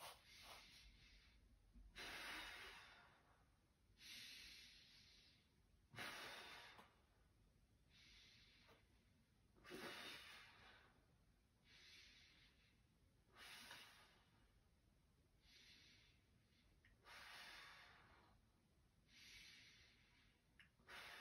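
A person's faint, slow breathing: deep inhalations and exhalations in an even rhythm, one about every two seconds, during a controlled diaphragmatic breathing drill that fills the lower ribs and belly.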